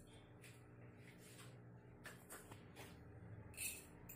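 Near silence with a faint low hum, broken by a few light taps and clicks of a spoon dropping whole spices into a metal kadai, the loudest about three and a half seconds in.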